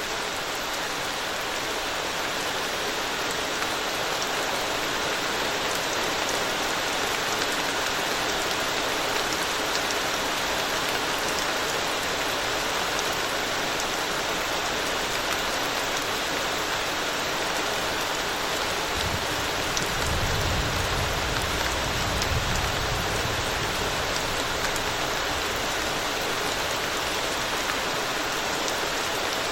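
Steady rain falling on a road, with individual drops ticking. About two-thirds of the way through, a low rumble comes in for about five seconds and fades again.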